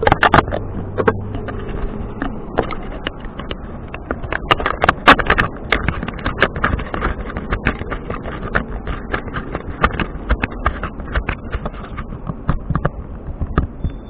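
Hand handling the camera close to its microphone: a fast, irregular run of taps, clicks and knocks with rubbing.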